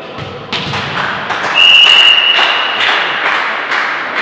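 A referee's whistle blown as one steady high note of over a second, the loudest sound here, among sharp thuds and taps of a ball being hit on a hall court.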